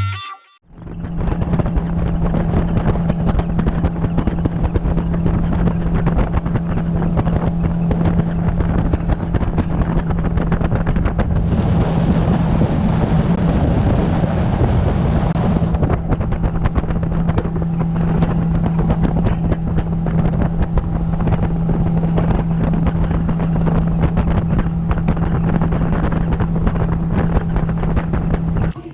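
Boat motor running at a steady speed, its even hum buried in heavy wind buffeting on the microphone. The hiss grows brighter for a few seconds about twelve seconds in.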